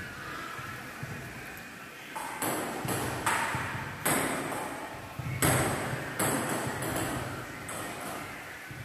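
Table tennis rally: the ball clicking off the bats and bouncing on the table, a hit or bounce about every half second, starting about two seconds in.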